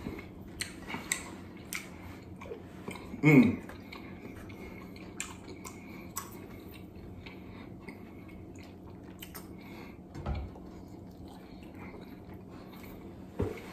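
Close-up eating sounds: chewing, with small scattered clicks of clam shells and fingers handled in a glass bowl. A short hummed 'mm' sounds about three seconds in, and a dull knock about ten seconds in.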